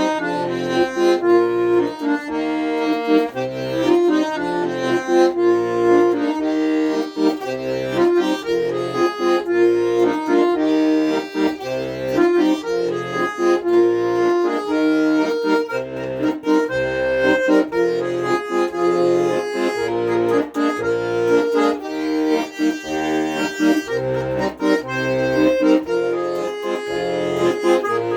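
Accordion playing an instrumental melody with chords over a steady, regularly repeating bass line.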